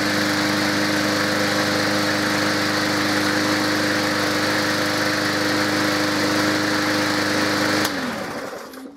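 Briggs & Stratton single-cylinder engine of a brand-new Poulan Pro PR450N20S push mower running steadily on its first start. About eight seconds in it is shut off and winds down, its pitch falling as it coasts to a stop.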